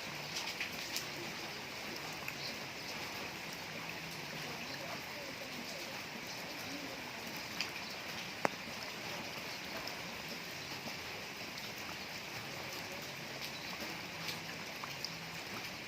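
Steady rain falling, an even hiss with scattered drips and taps and one sharper tap about eight seconds in.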